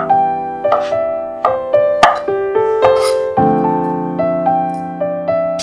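Gentle piano music with sustained notes, over a handful of sharp, irregular knocks of a cleaver cutting peeled luffa on a wooden chopping board.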